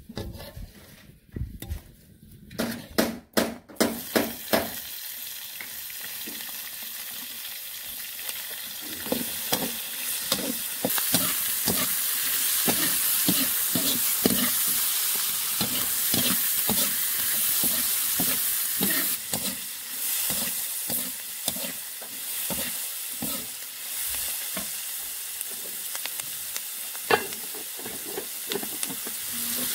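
Sliced onions sizzling in hot oil in a steel wok, with a metal spatula scraping and stirring against the pan in regular strokes. A few knocks come in the first few seconds, and the sizzle grows louder from about ten seconds in.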